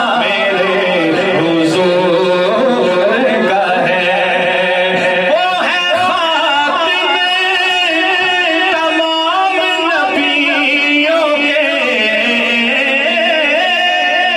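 A man singing a naat, an Urdu devotional poem in praise of the Prophet, in long, drawn-out notes that bend and ornament the melody.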